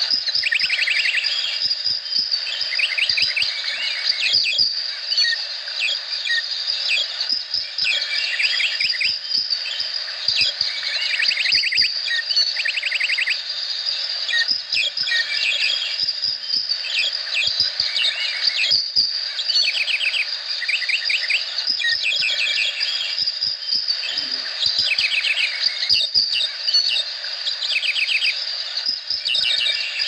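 Tropical rain forest chorus: a steady high insect drone, with short chirping trills of rapid notes repeating every second or two.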